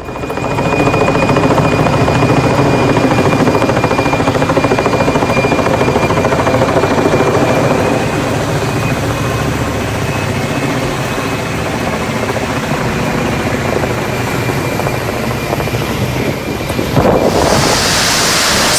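Large sawmill machinery running steadily: a loud rumble with a thin high whine over it, changing in character about 17 seconds in.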